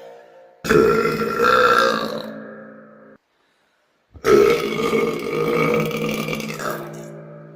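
Two long, loud burps from a young woman, each pitched and drawn out. The first starts about half a second in and cuts off suddenly after about two and a half seconds; the second starts about a second later and fades out slowly over about three seconds.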